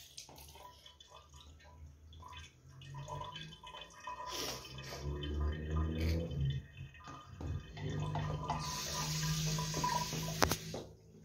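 Water running from a bidet tap into the ceramic bowl and splashing as a small child's hand plays in the stream. The hiss grows stronger near the end, and there is a sharp click about ten seconds in.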